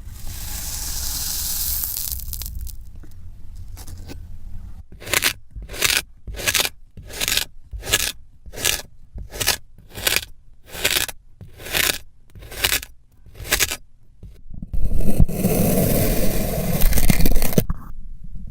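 Kinetic sand being scraped: first a faint hiss, then a run of evenly spaced scraping strokes at about two a second, then a few seconds of loud continuous scraping that stops near the end.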